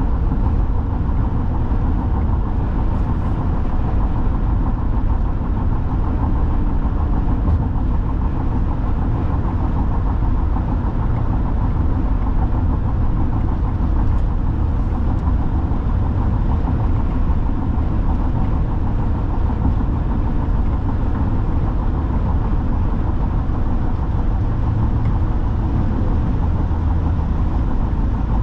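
Steady low road noise of a car driving at highway speed, heard inside the cabin: tyre and engine noise that holds even throughout.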